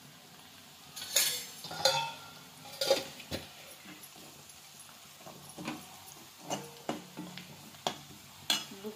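Steel ladle stirring onions frying in a black non-stick kadhai, knocking and scraping against the pan in a string of clinks, loudest between about one and three seconds in and again just before the end.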